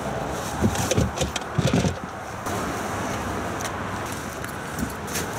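Fabric rustling and short clicks and knocks as waders and gear are pulled from a bag in an open car boot, over a steady outdoor hiss.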